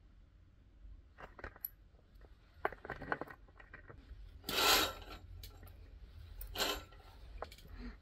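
Small objects being handled: scattered light clicks and taps, with two short rubbing swishes, about four and a half and six and a half seconds in.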